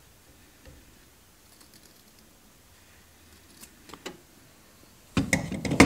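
A few faint clicks and taps from a small hand tool working at the headliner's edge, then a louder burst of handling noise near the end.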